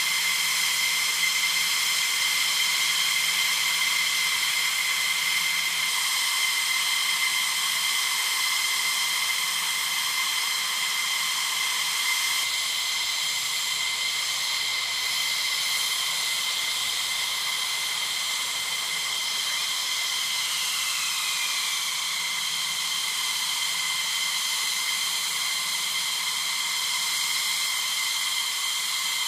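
F-15E Strike Eagle jet engines running at ground idle: a steady high-pitched whine of several tones over a rushing hiss. About two-thirds of the way through, one tone slides down in pitch.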